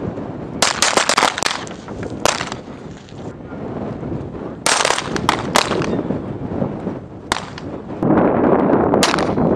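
Beretta M9 9 mm pistols firing on a qualification range: about a dozen sharp shots at irregular spacing, some in quick runs of three or four, others single. From about eight seconds in a steady rushing noise joins them.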